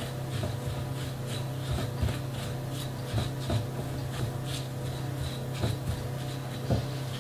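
Silicone spatula stirring shredded coconut and egg in a glass bowl: soft irregular scraping and ticking, a stroke or two a second, over a steady low hum.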